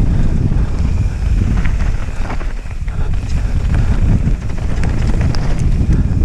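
Wind buffeting the helmet camera's microphone as a mountain bike rides fast down a dirt trail: a loud, steady low rush, with scattered short clicks and rattles from the bike.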